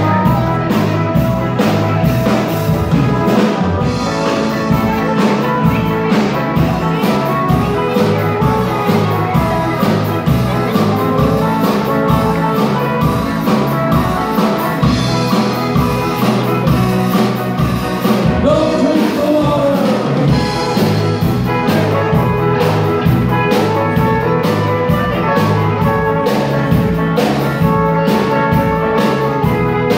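Surf rock band playing live: two electric guitars, electric bass and a drum kit in an instrumental stretch over a steady beat.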